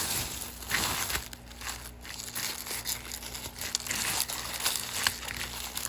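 Packaging crinkling and rustling in irregular bursts with small crackles as a bead subscription box is unpacked by hand.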